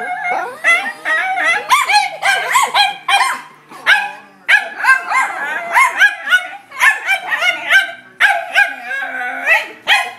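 Dachshunds barking in a rapid, near-continuous run of high-pitched barks, sometimes overlapping: alarm barking at an unfamiliar golf club that intimidates them.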